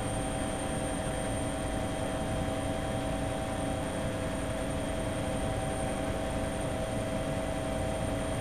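Steady engine and rotor noise of a helicopter in flight: an even rush with a few constant whining tones over it, unchanging throughout.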